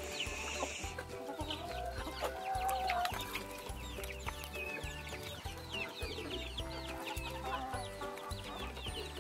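Chicks peeping in quick, high, falling chirps, with hens clucking, over background music with a steady beat.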